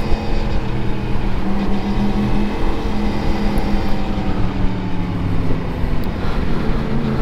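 Yamaha MT-10 SP's crossplane inline-four engine running at a steady pace while riding, its note holding level without revving up or down.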